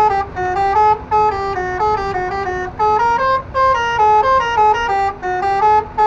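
Truck air horns driven by a six-trumpet telolet horn module, playing a quick melody of short stepped notes, about four a second. The tune climbs to a higher phrase around the middle and steps back down.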